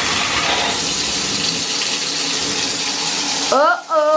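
Water running from a newly fitted bathtub spout into the tub, an even rush that stops suddenly about three and a half seconds in.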